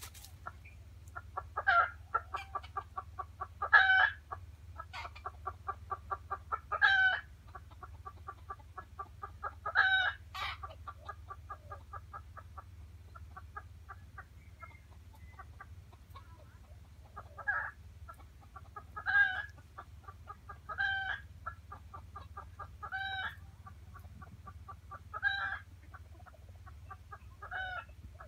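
Jungle fowl clucking in a rapid, even run of about five clucks a second, broken every two or three seconds by a louder, longer call.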